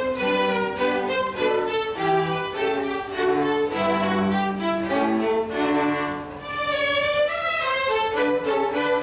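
A small string orchestra of violins and cellos playing together, a moving melody over sustained lower notes, with the sound briefly quieter about six seconds in before the full ensemble comes back.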